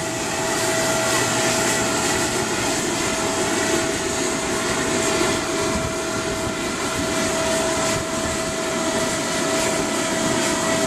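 Steady drone of a moving vehicle, with a constant mid-pitched hum over an even wash of noise.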